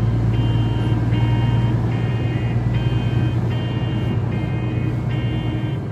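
A road vehicle driving steadily, its engine and road noise a constant low drone. Over it runs a repeating pattern of short high tones, a little more than one a second.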